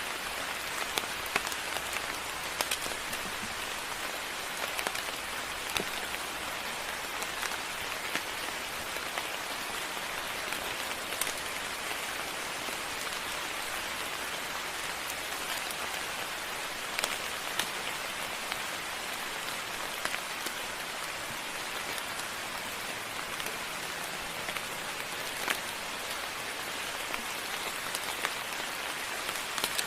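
Steady moderate rain falling, with scattered louder drops striking close by.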